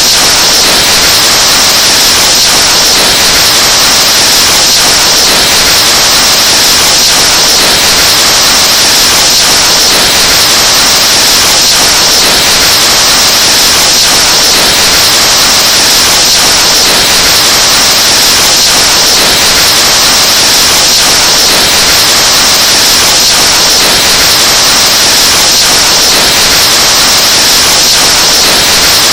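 Breath blown straight into a microphone, overdriven into a very loud, distorted hiss of noise that runs on without a break.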